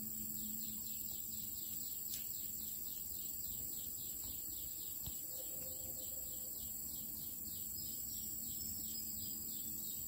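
A bird calling from somewhere off in the greenery: a fast series of short, high notes, each falling in pitch, about three a second. A steady high-pitched whine runs behind it.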